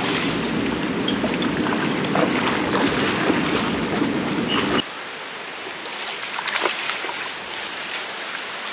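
Steady rush of wind on the microphone mixed with water splashing among the pier pilings as a hooked redfish is played at the surface. About five seconds in it drops suddenly to a quieter wash of lapping water.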